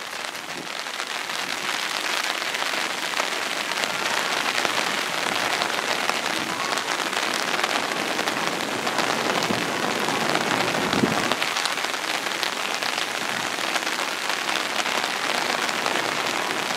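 Heavy hurricane rain falling steadily, a dense hiss of countless drops striking wet pavement and puddles, building over the first couple of seconds and then holding even.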